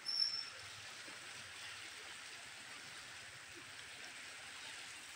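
Floodwater of the swollen Indus River rushing past the bank, a steady even wash of water noise. A short high-pitched chirp sounds right at the start.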